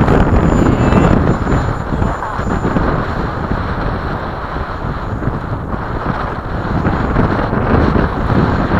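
Wind buffeting the microphone over the thin, steady whine of a radio-controlled FMS 80 mm Hawk's electric ducted fan in flight.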